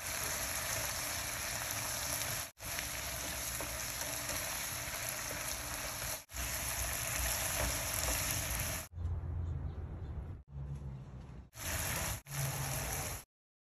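Shrimp and snow peas sizzling in a hot oiled frying pan as they are stir-fried and turned with a plastic slotted spatula. The sizzle breaks off briefly a few times and is softer in the last few seconds.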